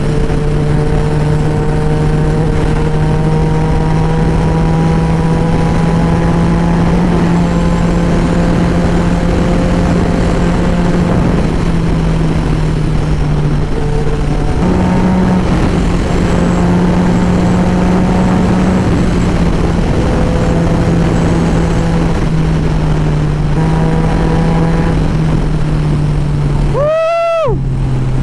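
Yamaha MT-09's inline-three engine running through an Akrapovic Racing Line titanium full exhaust, the bike cruising at a steady highway speed with wind noise. The engine pitch shifts slightly a couple of times. Near the end the engine sound briefly cuts out under a short swoop that rises and then falls.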